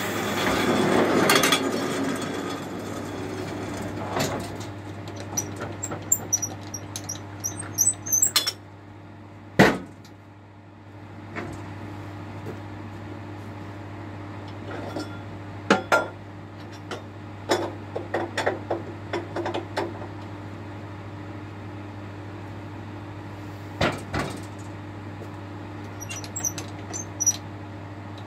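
Band sawmill cutting through a log for the first couple of seconds, a loud rush of blade and sawdust that dies away. The machine then runs on with a steady hum, under scattered knocks and clunks of timber and steel as the sawn beam is handled on the bed, the loudest knock about ten seconds in.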